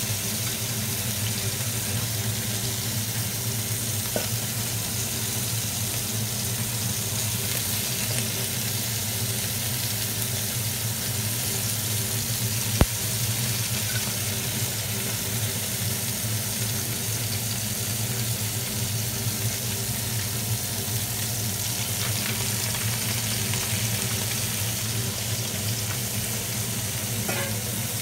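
Capelin sizzling in oil in a nonstick frying pan as more fish are laid in, a steady sizzle over a low steady hum. One sharp click comes about halfway through.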